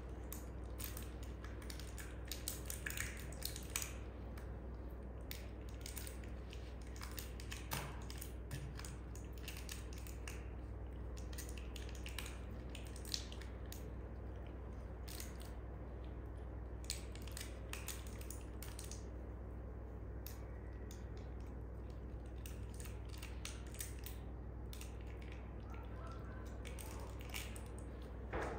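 Scattered small clicks and crackles of a monkey grooming a baby monkey, picking through its fur and knitted clothes with its fingers and mouth, over a steady low hum.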